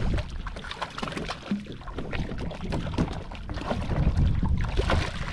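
Irregular knocks and rustles on a fishing kayak as a freshly landed uku is dealt with aboard, over low wind and water noise.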